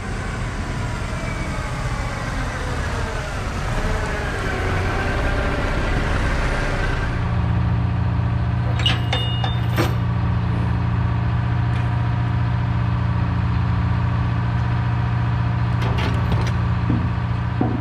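Diesel engine of a semi truck hauling a loaded lowboy trailer, rising and falling in pitch as it approaches, then idling steadily once parked. A few sharp clicks sound over the idle near the middle and again near the end.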